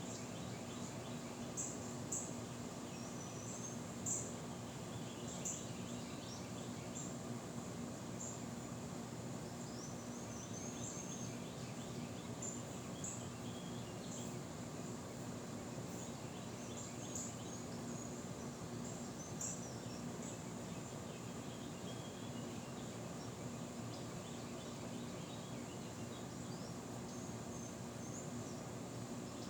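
Outdoor ambience: many short, high-pitched chirps and a few brief warbling calls over a steady low rush of background noise.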